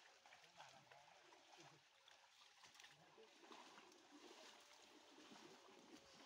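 Faint sloshing and splashing of shallow water as men wade and drag a large round hoop net through a pond, with low murmured voices.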